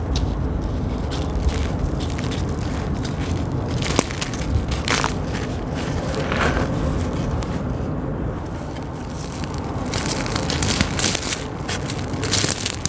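Dry, gritty sand-cement chunks crunching and crumbling between fingers, with loose grit and sand trickling down onto a sandy floor. The crunches come irregularly: there is a sharp click about four seconds in and a cluster of louder crunches near the end, over a steady low rumble.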